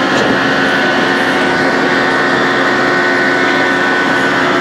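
Loud, steady machinery din of an offshore drilling rig's drill floor: a constant noisy wash with several steady hums and a high whine held through it.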